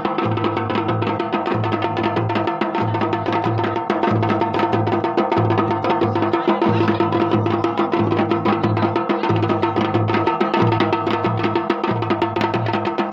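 Dhol and damau drums playing a fast, continuous jagar rhythm, with a deep bass beat recurring about every second and a quarter and a steady ringing tone underneath.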